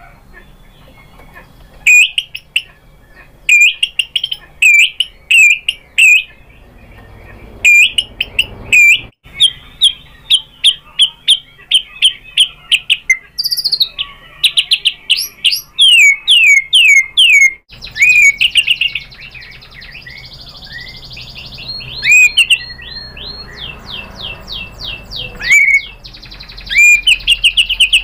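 White-rumped shama (murai batu) singing a loud, varied song: sharp sweeping whistles and fast runs of rapidly repeated notes, with a softer, scratchier passage in the second half.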